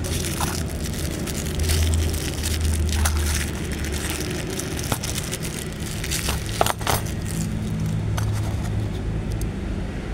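Clear plastic wrapping crinkling in short bursts as a lock cylinder is handled and pulled out of it, over a steady low engine rumble.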